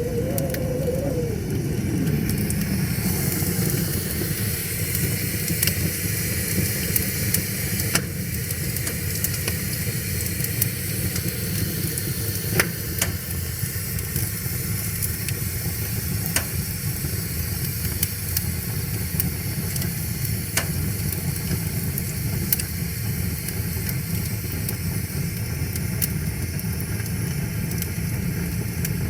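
Wood fire crackling, with single sharp pops every few seconds over the steady rush of a river. In the first two seconds a low tone slides down in pitch and fades out.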